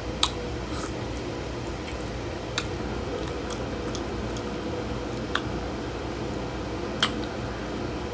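Steady low room hum with a few faint, sharp clicks scattered through it.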